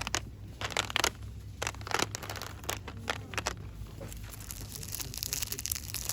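Packaging being crinkled and rustled by hand in a string of short crackling strokes, running together into a denser rustle near the end.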